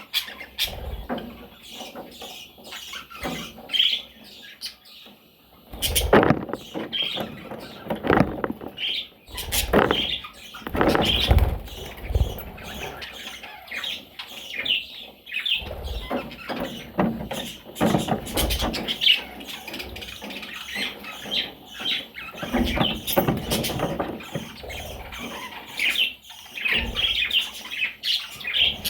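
Budgerigar chicks chirping and squeaking in quick, short calls. Irregular bumps and thumps run through them, some loud.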